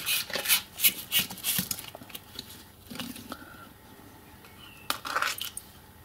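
Small metal parts of a speedometer cable clinking and tapping as they are handled: a quick run of light clicks over the first two seconds, then a few more about five seconds in.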